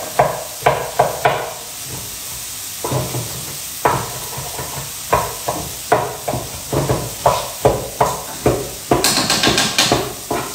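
Knife chopping a courgette on a chopping board: sharp regular cuts, about three a second, pausing briefly about a second and a half in, then carrying on. Near the end comes a brief, denser clatter.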